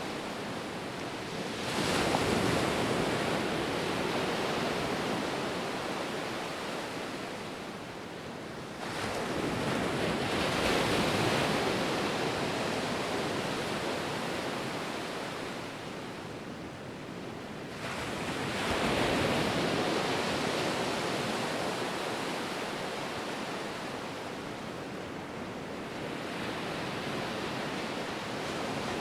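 Ocean surf: waves break about two, nine and nineteen seconds in, each swelling up and then fading into a steady wash.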